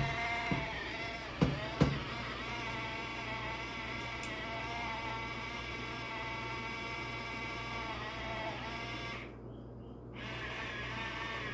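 An electric appliance motor running with a steady whine over a low hum, with two sharp clicks about a second and a half in.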